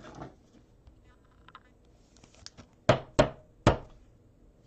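Three sharp knocks in quick succession about three seconds in, after a little faint rustling while trading cards are handled.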